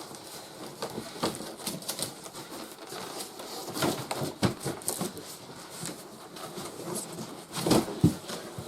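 Irregular knocks, scrapes and rustling as a large cardboard shipping box is handled and moved, with a couple of heavier thuds near the end.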